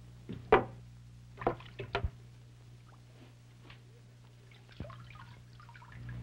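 Water splashing and dripping as an electric eel is lifted out of its tank in a plastic bag. A few sharp splashes and knocks come in the first two seconds, then water trickles and drips. A steady low hum lies under it all.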